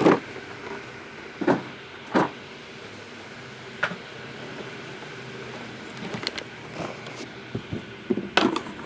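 Scattered sharp taps and clicks of objects being handled on a table, a few single ones in the first half and a quicker cluster near the end, over a faint steady hum.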